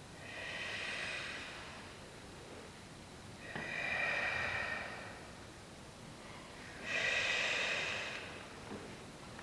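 A group of performers breathing audibly in unison: three long, hissing breaths about three seconds apart.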